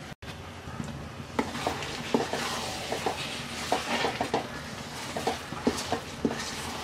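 Wooden spatula stirring thick, sticky jujube pickle in a metal pan, with irregular scrapes and knocks against the pan over a soft sizzle. The stirring starts about a second and a half in.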